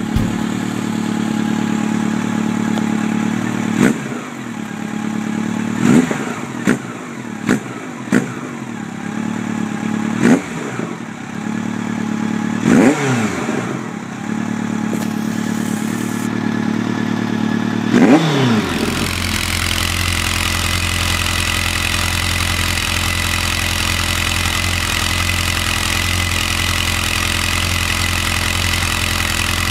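Honda CB1100's air-cooled inline-four idling, blipped about nine times, each rev rising and dropping back quickly. About two-thirds through, the sound changes abruptly to a CB1100 idling steadily.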